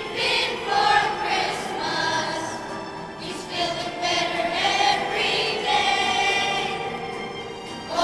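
A children's choir singing, with long held notes, the sound easing off toward the end.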